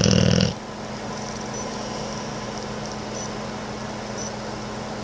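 A Boxer dog's loud, rough snore that cuts off about half a second in, followed by a steady low hum.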